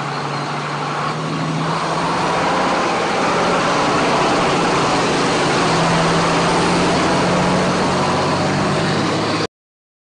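Forest-service fire truck's diesel engine running steadily at close range, a low hum under a broad hiss; it cuts off suddenly near the end.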